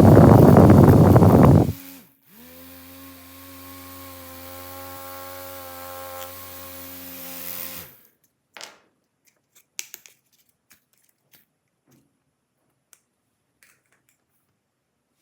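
Small toy DC motor running loudly with a buzzing whir, cutting off under two seconds in. A steady, much quieter hum with a fixed pitch follows for about six seconds, then a few faint small clicks.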